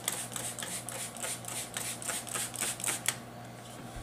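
Plastic trigger spray bottle pumped rapidly, about four quick hissing sprays a second, misting soapy water onto a surface to wet it for a vinyl decal; the spraying stops about three seconds in.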